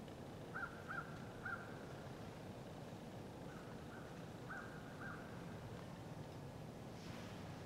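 A bird calling in the distance: a run of three short calls, then after a pause a run of four more, over quiet outdoor background.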